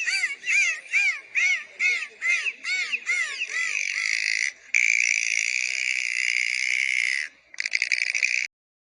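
Orca calls: a run of short squealing calls that rise and fall in pitch, about two a second, then one long held high call, then a short buzzing pulsed call that cuts off suddenly.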